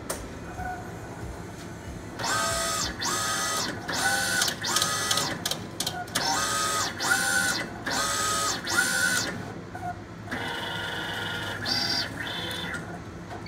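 Mimaki JV33-130 wide-format printer's print head carriage shuttling back and forth, its drive motor whining briefly with each of about ten quick passes, then running steadily for a couple of seconds near the end. It is printing the draft bi-directional drop-position alignment pattern used to calibrate a newly installed print head.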